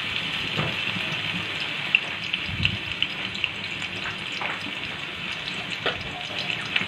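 Chopped garlic sizzling steadily in hot cooking oil in a karai, with scattered crackles and a few light knocks.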